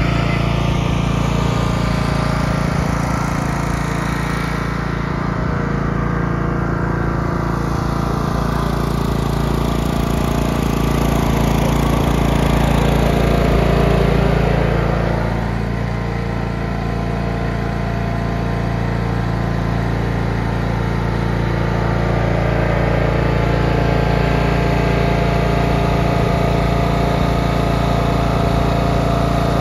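Riding lawn mower's small engine running steadily, briefly louder about halfway through.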